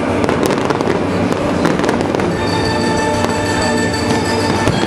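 Fireworks going off in a rapid, continuous series of pops and bangs as aerial shells and low fountains fire. Music plays underneath.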